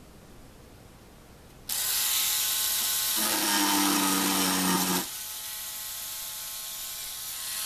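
A small rotary tool fitted with a drum sander starts up about two seconds in and runs with a steady high whine. For a couple of seconds in the middle a brass wire brush is pressed against the spinning sanding drum to clean it, adding a lower, louder grinding tone. The tool then runs on more quietly.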